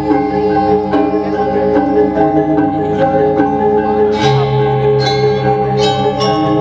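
Balinese gong kebyar gamelan played by a women's ensemble: bronze metallophones ringing in fast interlocking patterns. In the second half come sharper accented strikes and a deep sustained tone.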